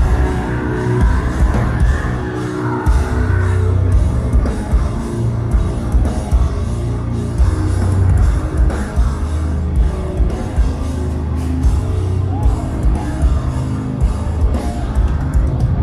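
Progressive metal band playing live: heavy distorted guitars, bass and drums with a driving, steady beat.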